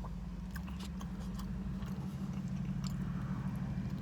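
Faint chewing of a mustard-laden cheeseburger, with small scattered mouth clicks, over a steady low hum.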